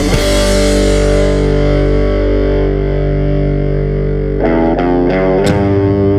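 Rock music led by a distorted electric guitar: a held chord rings out and fades, then new notes are picked near the end as the bass shifts.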